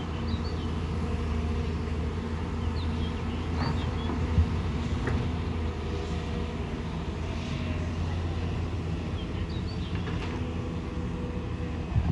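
Excavator's diesel engine running at a steady drone, with a few faint short high chirps over it and a single click about four seconds in.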